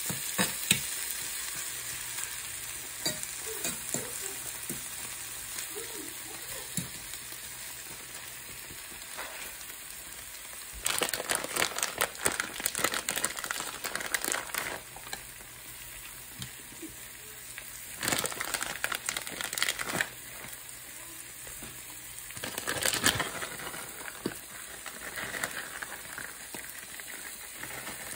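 Egg, ham and cherry tomato omelet sizzling steadily in a frying pan, with a spatula scraping and stirring in the first few seconds. Three bursts of plastic crinkling as a bag of shredded cheese is shaken out over the pan, the longest near the middle.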